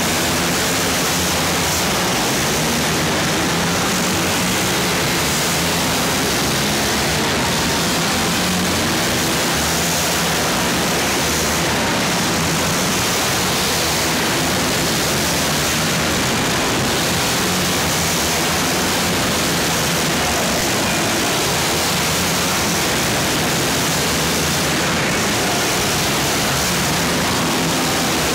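Several ATV engines racing on an indoor ice track, merging into a loud, steady wash of noise.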